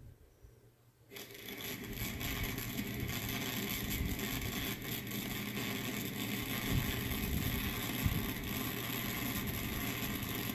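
Recorded arc-welding sound effect played back through a small speaker by a DFPlayer Mini mp3 module: a steady crackling sizzle that starts about a second in and drives the model welder's LED flashes.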